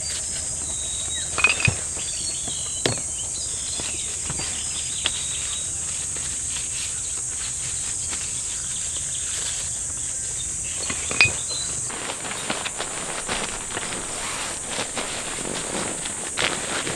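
Insects keep up a steady high-pitched drone, with a few sharp clicks or knocks over it.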